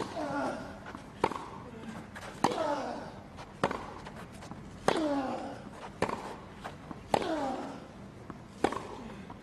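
Tennis rally on a grass court: racquet strikes on the ball about every 1.2 seconds, alternating between the two players. Every other strike comes with a loud falling grunt from the same player.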